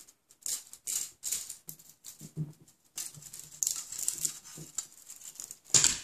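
A hard 3D-printed PLA plastic part being handled and turned in the hands: irregular rustling, scraping and light clicks of plastic against skin and plastic, loudest near the end.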